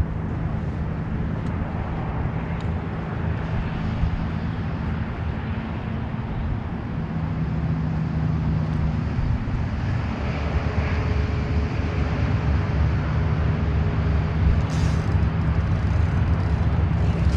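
An engine running steadily at a constant speed, a low even hum with a rushing noise over it.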